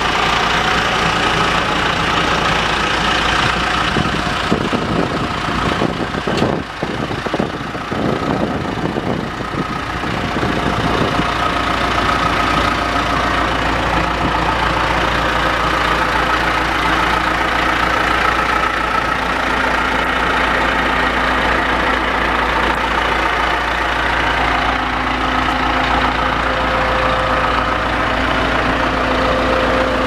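John Deere 410G backhoe's diesel engine idling steadily.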